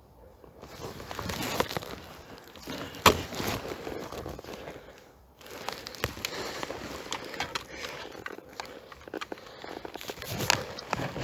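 Footsteps crunching and rustling through dry leaves and twigs on a forest floor, with many small crackles and one sharp crack about three seconds in.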